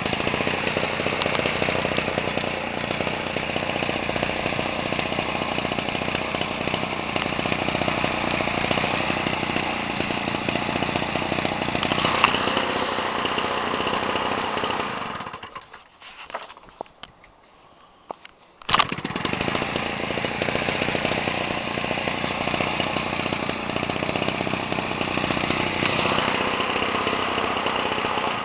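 Homelite 30cc two-stroke trimmer engine, converted to swing a model-aircraft propeller, running at speed. It cuts out about 15 seconds in, then is hand-started again and catches abruptly about three seconds later, running on.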